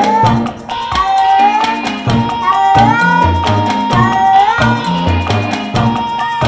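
Background music with a steady beat and pulsing bass, its melody sliding up in pitch on each repeated phrase.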